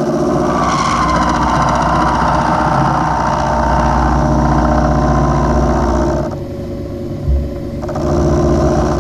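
Milling machine spindle running at 914 RPM with an end mill taking a light 0.1 mm skim along the side of a metal workpiece clamped in a vise: a steady motor hum under the noise of the cut. The cutting sound drops away about six seconds in, with a brief thump about a second later, and returns near the end.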